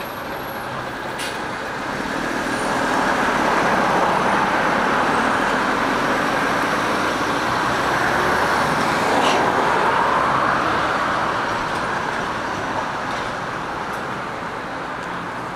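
Road traffic on a busy multi-lane city street: the tyre and engine noise of passing vehicles swells over a couple of seconds, stays loud for several seconds and fades again.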